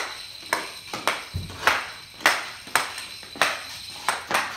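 Stickhandling an off-ice hockey biscuit on a rough concrete floor with a hockey stick whose blade wears a wraparound cover: sharp clacks of blade on biscuit about twice a second, with one dull thump about a second and a half in.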